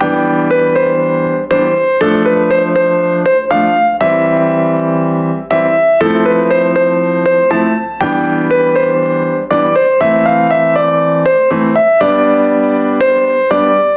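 Background keyboard music: a slow melody over held chords.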